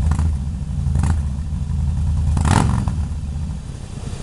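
Harley-Davidson Fat Boy's V-twin engine running through an exhaust fitted with a variable damper, revved in three short throttle blips, the loudest about two and a half seconds in.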